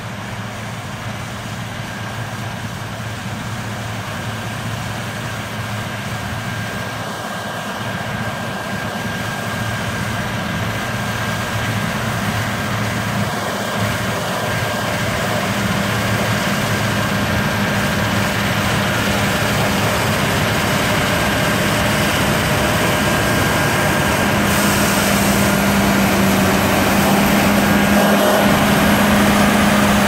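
Claas Lexion 770 combine harvester at work cutting wheat: a steady drone of its diesel engine and threshing machinery that grows louder as it approaches, with a humming tone coming in about halfway.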